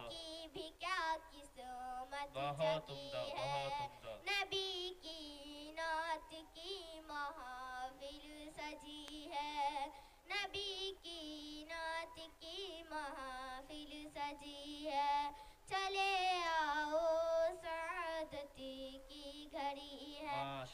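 A girl singing a naat solo into a microphone, in long held phrases with a wavering vibrato.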